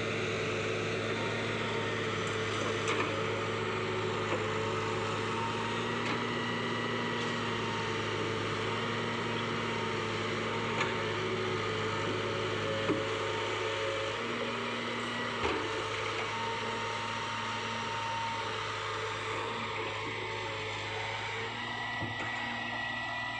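Heavy diesel machinery engine running steadily at a constant pitch, with a few brief light knocks.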